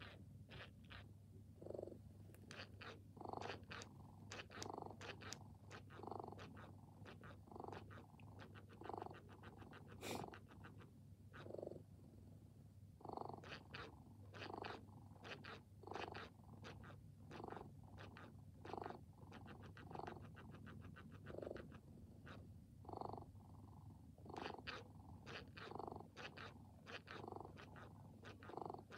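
Electronic cat purr from a MeowEver robotic purring mechanism fitted inside a plush robot cat: a faint, rhythmic purr of about one and a half breaths a second over a steady low hum. It pauses for a couple of seconds about ten seconds in, with a single click.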